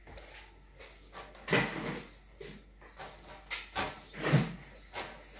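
Kitchen handling sounds: a cupboard door and containers knocking as they are moved about, a string of separate knocks and clatters with the loudest about four seconds in.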